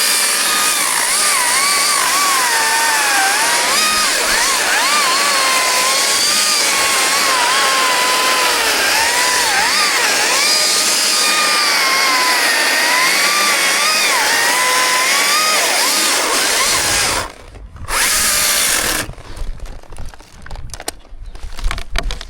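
Two-stroke chainsaw cutting through wood, its engine pitch wavering up and down as the chain loads in the cut. About 17 seconds in it drops off, runs once more for about a second, then stops, leaving scattered knocks and rustling.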